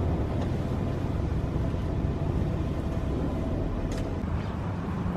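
Car engine running with a steady low rumble, the car stuck in snow; a faint whine in the middle and a single click near the end.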